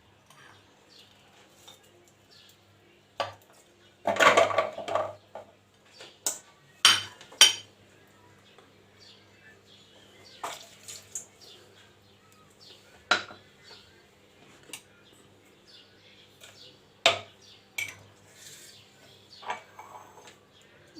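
Spoons and dishes clinking and knocking in scattered short bursts as kitchen ingredients are handled, loudest around four to seven seconds in.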